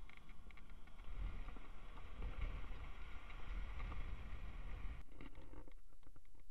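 Vehicle engine and tyre rumble heard from inside the cabin while driving. About five seconds in the rumble cuts off abruptly and a quieter, uneven sound follows.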